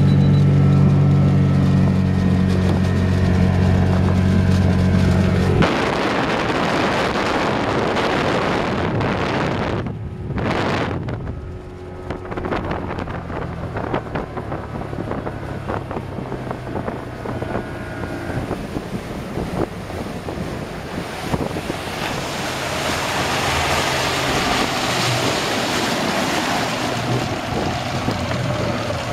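Rebuilt Mercury 135 hp V6 two-stroke outboard running under way during its break-in, a steady engine tone. About six seconds in, wind on the microphone and the rush of the wake and spray take over, with the engine still heard beneath.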